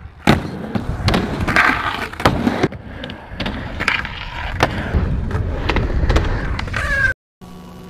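Skateboard rolling on hard ground, with a string of sharp clacks and thuds from tail pops and landings. It cuts off suddenly about seven seconds in.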